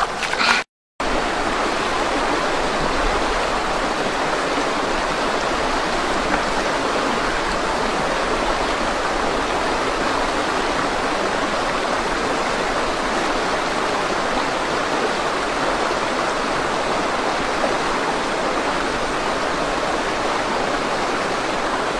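Rushing water of a rocky forest stream, a steady even noise that breaks off for a moment about a second in.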